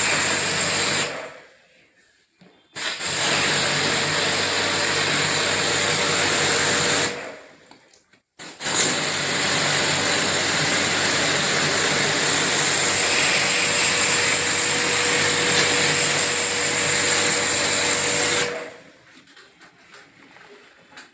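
Electric pressure-washer pump and water jet running in three spells, with a steady high whine over the hiss of the spray. It drops out briefly twice, then cuts off a few seconds before the end.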